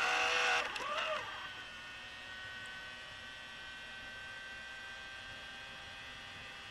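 Tape camcorder's transport mechanism running as play is pressed, a steady whining hum with several pitches. About a second and a half in it drops to a quieter steady hum. The camcorder is faulty and does not play the tape.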